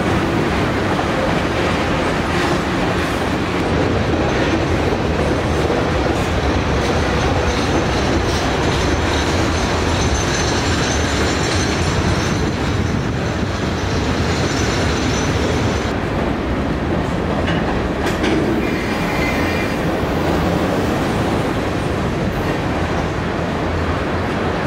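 Freight train cars rolling past, a steady rumble and clatter of steel wheels on rail, with a thin, faint high wheel squeal through the middle and again briefly near the end.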